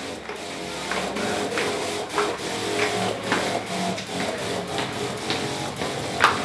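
Blue knapsack disinfectant sprayer working: a steady mechanical whir with a spray hiss, broken by irregular knocks and clicks.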